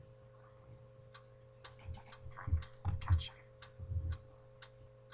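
Rhythmic ticking made with the mouth, sharp tongue clicks about two a second imitating a clock. Between them, about two seconds in, come louder low muffled sounds for about two seconds.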